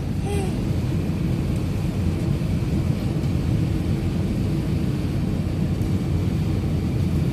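Steady low rumble of a moving vehicle heard from inside its cabin.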